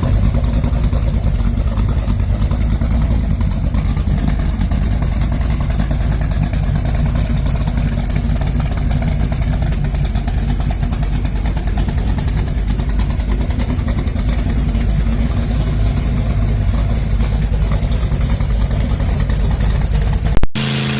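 Gasser car's engine running loud and steady, with a dense, even pulsing throughout. It cuts off abruptly shortly before the end.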